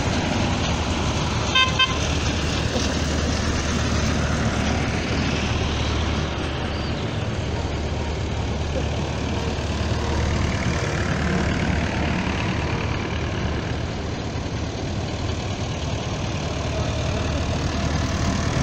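Vintage tractors driving past one after another, their engines running steadily. A horn beeps twice, briefly, about a second and a half in.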